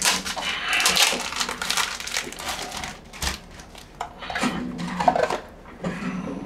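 Handling noise: crinkling and rustling with sharp clicks and clatter for about three seconds, then quieter.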